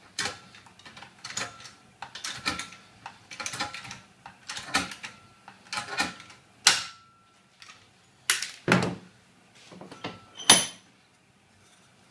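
Hand pop-rivet gun squeezed again and again to set a 4 mm pop rivet through steel trunking lid: a string of metallic clicks and clacks, with a few louder sharp snaps in the second half, the loudest about ten and a half seconds in.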